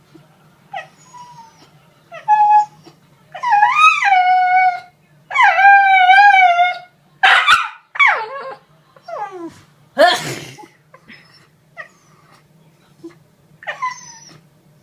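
Shiba Inu howling and whining: a few short yips, then two long, loud howls with a wavering pitch, then shorter falling whines. A sharp noisy burst about ten seconds in is as loud as the howls.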